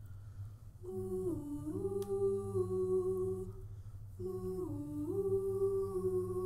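A cappella vocal group humming held notes in harmony with no instruments: two long phrases, each dipping in pitch and gliding back up before holding steady. A steady low hum lies underneath.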